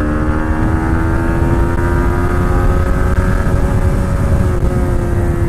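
Yamaha MT-15's 155 cc single-cylinder engine pulling at full throttle in third gear. Its note rises slowly, then levels off near the end.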